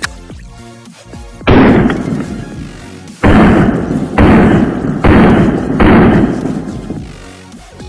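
Five loud pistol shots from a Springfield Echelon fitted with a Patriot CNC compensator, unevenly spaced about a second apart, each with a long fading tail, over electronic background music.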